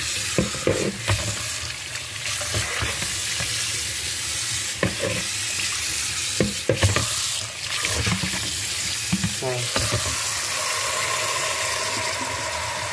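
Kitchen tap running into a stainless steel sink as a plastic dog water bowl is rinsed under it, the water splashing, with scattered knocks of the bowl against the sink. After about ten seconds the knocks stop and the stream pours steadily into the bowl as it fills.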